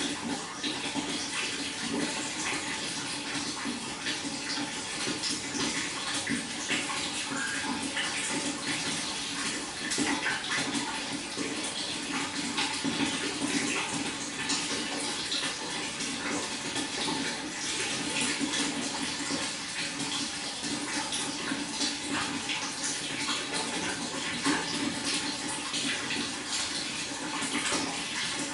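Water flowing and splashing steadily.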